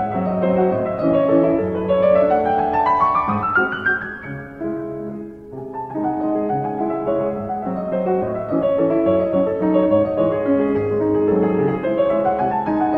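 Background piano music. A quick rising run of notes comes about three seconds in, the playing softens briefly, then carries on.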